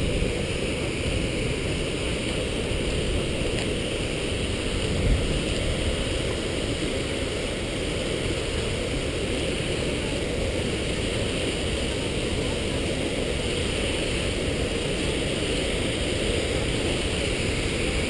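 Steady, even rushing roar of Skógafoss, a high waterfall plunging onto its plunge pool, with one brief knock about five seconds in.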